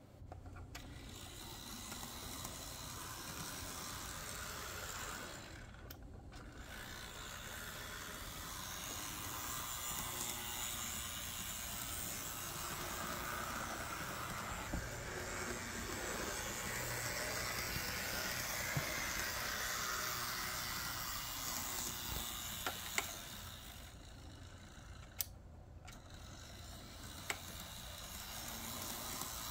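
Märklin Z-scale ES64 model electric locomotive running on its track: a steady whir of the tiny motor and wheels that swells and dips in level, with a few sharp clicks in the second half.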